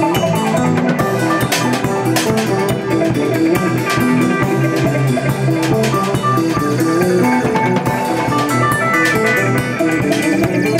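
Improvised instrumental band jam: a quick run of plucked guitar notes over bass and a steady drum kit, with bell-like synthesizer tones layered in.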